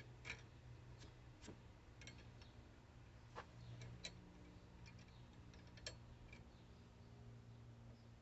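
Near silence: faint, irregular clicks and light taps of a steel hand tool being handled at a wood lathe, over a low steady hum.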